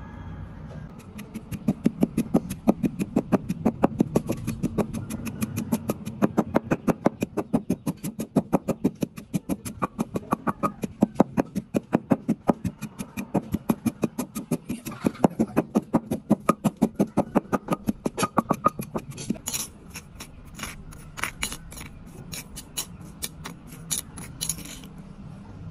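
Wooden pestle pounding salt and chili in a stone mortar, a steady rhythm of about three or four knocks a second. For the last few seconds a metal spoon scrapes and clicks against the stone.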